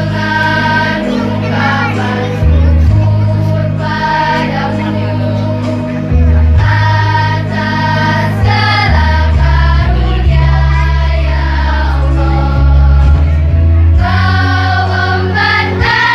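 A school choir of young voices singing in unison over a loud instrumental backing track with a steady bass line.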